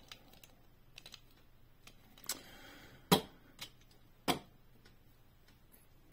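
A few sharp clicks and taps of a diecast toy monster truck being handled and set down on a hard tabletop; the loudest tap comes about three seconds in.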